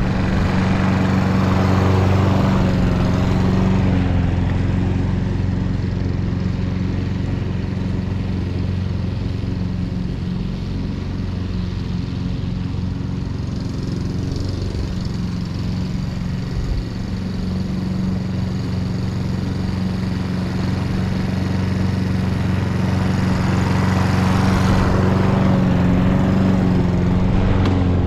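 Hayter Pro 41 petrol lawn mower engine running steadily under cutting load. It is louder near the start and the end, when the mower passes close, and fainter in the middle, when it is mowing farther off.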